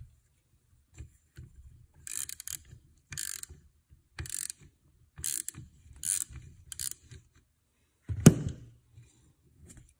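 Ratchet wrench clicking in short bursts about once a second, backing a double-nutted exhaust stud out of a turbocharger housing; the stud turns out easily. One loud knock of metal near the end.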